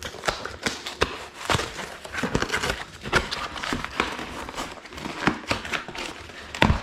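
Cardboard box and packaging being handled and opened: a run of irregular knocks and taps over rustling.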